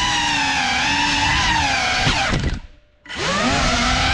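GEPRC Cinelog 35 cinewhoop's motors and ducted propellers whining steadily. About two seconds in the whine sweeps down and almost dies away as the throttle is cut, then climbs back a second later as it is opened again.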